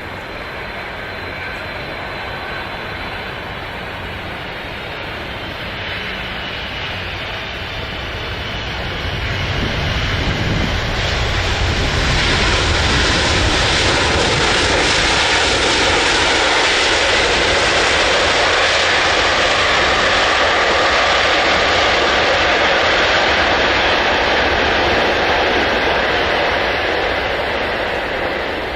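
Aircraft engine noise builds as a plane approaches and passes close by, with a faint falling pitch as it goes past, then begins to fade near the end.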